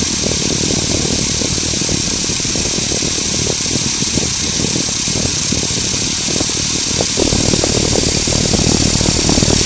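Motorized Lego Technic car running across a wooden floor: a steady electric-motor whir over a dense rattle of plastic gears and wheels, getting somewhat louder about seven seconds in.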